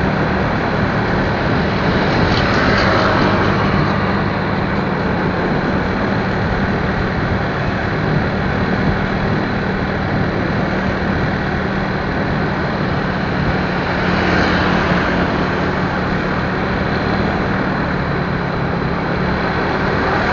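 Motorcycle engine running steadily under way, with rushing wind and road noise, swelling louder twice.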